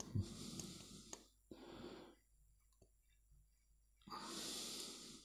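Quiet breathing close to the microphone, three breaths, with a faint click or two from fingers pressing components into a solderless breadboard.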